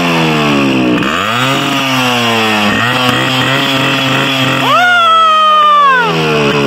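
Yamaha RX two-stroke single-cylinder motorcycle engine being revved hard while standing still: a sharp rev about a second in that falls away slowly, a short blip about three seconds in, then the biggest rev near five seconds, held high for a second or so before dropping back.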